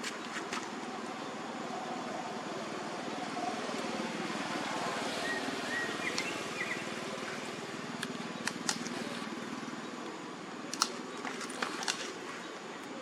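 Outdoor ambience: a steady background hiss, with a few brief faint high chirps about five to six seconds in and several sharp clicks in the second half.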